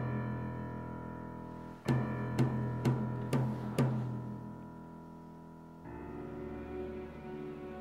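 Dark film-score music: a low note struck five times, about half a second apart, each ringing on. Near the end, low bowed strings enter and sustain.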